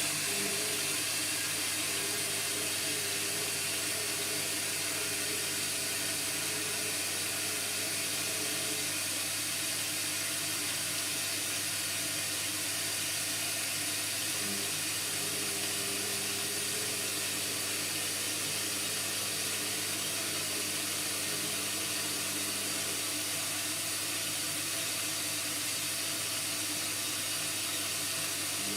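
Indesit washing machine taking in water through its inlet valve, a steady rushing hiss over a low electrical hum, typical of a rinse fill.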